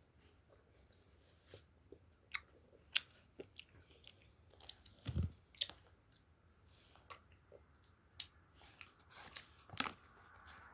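A child chewing jelly candy, with scattered soft wet clicks and smacks of the mouth. There is a low thump about five seconds in.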